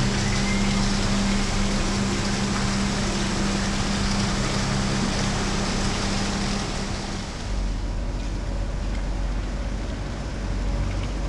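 Steady outdoor background hiss with a constant mechanical hum. About seven and a half seconds in, the hum stops and a low wind rumble on the microphone takes over.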